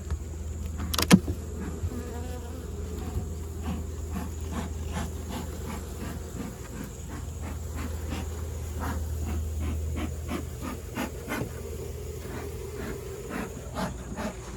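Honeybees buzzing in a steady hum around an open hive, with scattered light clicks and knocks from the hive being worked and one sharp knock about a second in.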